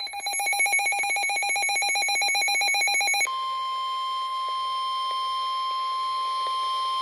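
A fast-pulsing electronic warble for about three seconds, then an abrupt switch to one steady tone just above 1 kHz. The steady tone is the NOAA Weather Radio 1050 Hz warning alarm tone, which signals that a National Weather Service flood warning follows.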